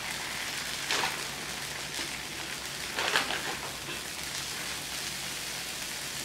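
Consommé-dipped tortillas frying on a flat-top griddle, with a steady fine crackling sizzle. Two brief louder noises break in about one and three seconds in, the second the louder.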